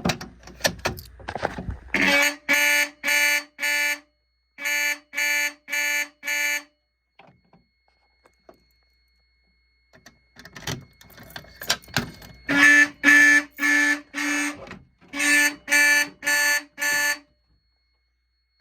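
Fire alarm horns pulsing in code 44 from a NAC coder: a group of four short blasts, a short gap, another four, then several seconds of silence before the pattern repeats. Clicks and rattles come first and again between the two rounds.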